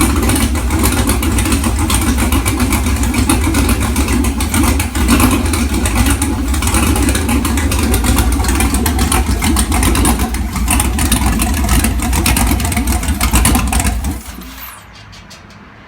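Freshly rebuilt 6.0 LQ4 V8 on an engine test stand running on its first startup after the rebuild, its exhaust leaving through the turbo hotside merge pipes. It shuts off near the end.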